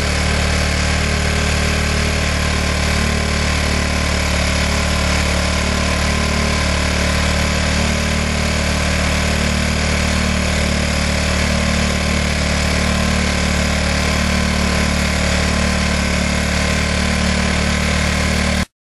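A motor or engine running steadily: a loud, unchanging low drone with a hiss over it, which cuts off suddenly at the end.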